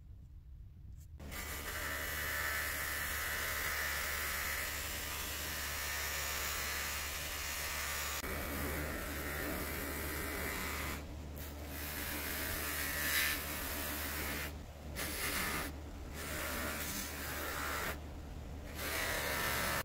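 Bench buffing wheel spinning with a small knurled brass thumbscrew held against it, making a steady rushing hiss that starts about a second in. The hiss drops away briefly several times in the second half as the part comes off the wheel.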